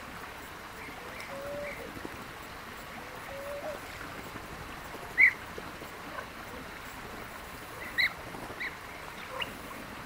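Common bee-eaters calling: a few short, scattered calls over a steady background hiss, the loudest about five seconds in and another at eight seconds. A couple of lower, shorter notes come in the first few seconds.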